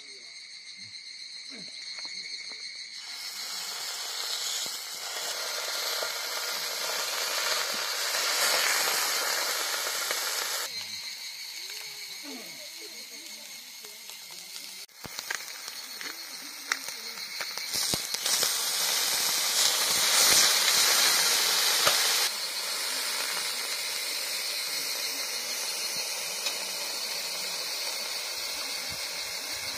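Slices of beef sizzling on an electric hot plate: a steady hiss that grows louder and eases in stretches.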